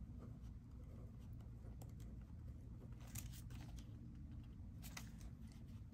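Faint paper handling of a B6 Stalogy notebook: soft pen-on-paper scratching, then a few light rustles and taps as the pages are flipped, about three seconds in and again near five seconds.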